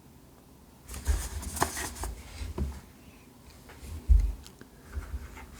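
Handling noise from cables and gear being moved by hand: rustling with light clicks, and a low thump against the microphone about four seconds in.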